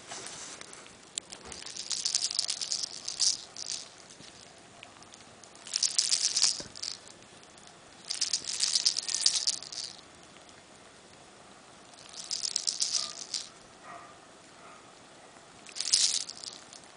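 A kitten right against the camera makes five bursts of crackly, rattling rustle, each lasting one to two seconds, with short quiet gaps between them.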